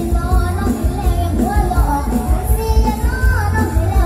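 Live mor lam band music through a loud PA: a singer's voice over a heavy, regular bass beat.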